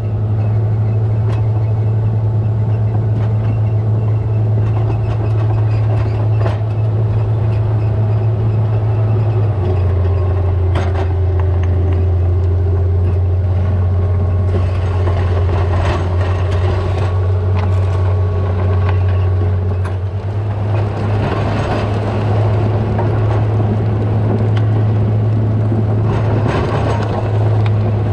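Komatsu GD655 motor grader's diesel engine running steadily under load while the blade grades gravel back onto the road, with a few brief knocks and rattles. Its pitch drops about ten seconds in and comes back up about ten seconds later.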